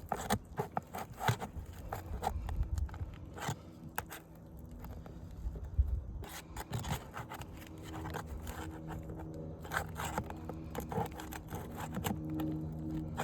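Irregular scraping and sharp clicks of a long shingle nail puller being worked under asphalt architectural shingles to pull roofing nails.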